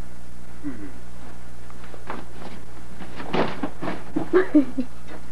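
A person's short, indistinct vocal sounds and a burst of rustling in the second half, over a steady low hum.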